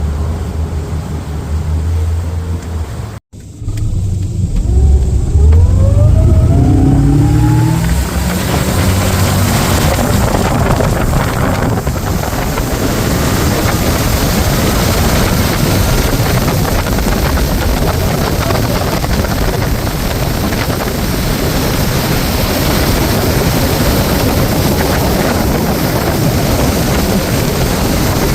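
Motorboat engine running low and steady, then revving up with a rising pitch about three seconds in as the boat accelerates; from then on a steady rush of wind and water noise at speed.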